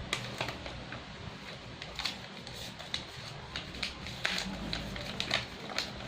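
Sheet of paper crackling and crinkling as it is handled and creased, in irregular sharp crackles over a steady low hum.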